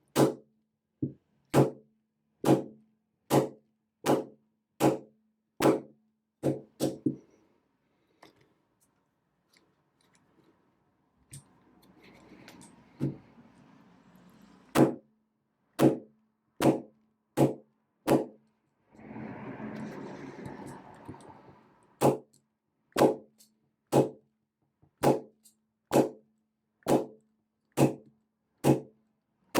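Rubber-tipped crescent wrench knocking on the body of a four-wheel combination padlock, about one sharp tap a second, with a pause in the middle and a short scraping rustle about 19 s in. The taps are meant to jar the spring-loaded locking lever down so the shackle can be pulled out without the combination.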